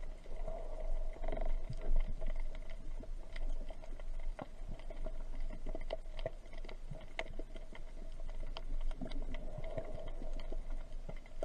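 Underwater ambience recorded by a camera beneath the sea: scattered sharp clicks and crackles over a low rumble and a steady hum, swelling briefly into a rushing wash about a second in and again near the end.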